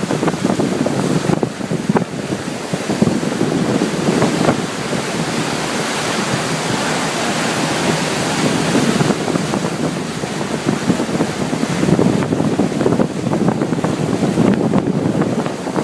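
Wind buffeting the microphone aboard a moving boat, over a steady rush of water, rising and falling in gusts.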